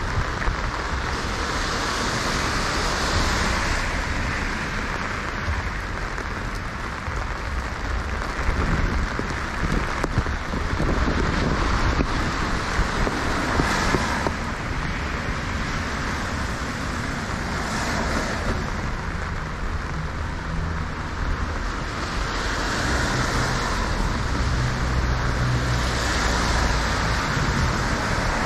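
Rainy city street ambience: cars passing on wet pavement, their tyre hiss swelling and fading every few seconds over a steady wash of rain and traffic. A low engine hum from a nearby vehicle comes in for a few seconds past the middle.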